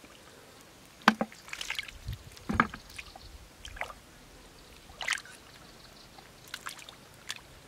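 Hands groping through a shallow, muddy puddle: scattered short splashes and squelches of water and mud, the sharpest about a second in.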